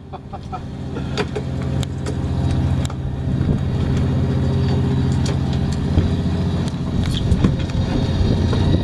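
Electric fishing reel's motor running steadily as it winds in line. It grows louder over the first three seconds and then holds, with scattered clicks and knocks of the rod and tackle.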